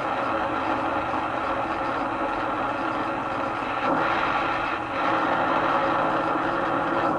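Radio Shack DX-302 shortwave receiver hissing with static through its speaker in AM mode while being tuned up toward 15 MHz. The noise changes abruptly about four seconds in and again a second later, after which a faint low steady tone sits under the hiss.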